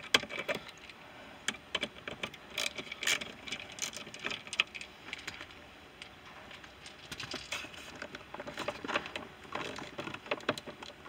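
Irregular light clicks, knocks and rattles of hand work on the shift handle of a 2014 Jeep Grand Cherokee as it is wiggled and pried to pop it off its lever. The handle stays stuck because its retaining screw is not yet fully out.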